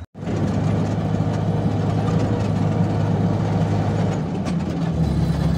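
A motor vehicle's engine running steadily, heard from on board while moving along with road noise. Its low note drops near the end.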